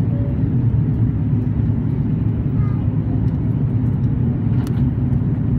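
Steady low rumble inside the cabin of an Airbus A330-322 in flight: the drone of its Pratt & Whitney PW4000 turbofans mixed with airflow rushing past the fuselage.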